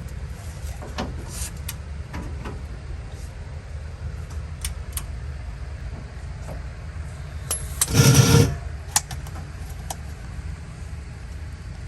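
Low steady hum of the 1992 Eclipse GSX's electric fuel pump running to pump fuel out of the tank, with light clicks and knocks and a brief loud rushing noise about eight seconds in.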